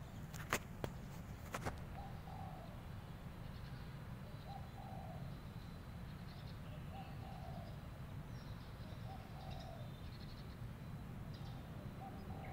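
A dove cooing in the background, one short coo about every two and a half seconds, with small birds chirping faintly above it. A few sharp clicks sound in the first two seconds over a steady low outdoor rumble.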